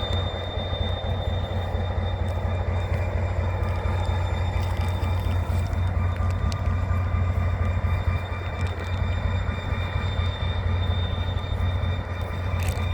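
HŽ series 2044 diesel locomotive running with a steady low engine drone, with thin steady high tones over it.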